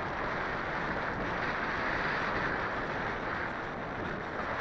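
Wind rushing over the onboard camera's microphone of a Skywalker 1900 RC plane in flight: a steady rushing noise with no clear motor tone.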